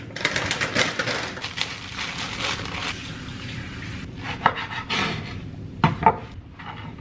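Kitchen knife cutting enoki mushrooms on a wooden cutting board, with a few sharp knocks of the blade on the board in the second half. Several seconds of crackling, rustling noise come first.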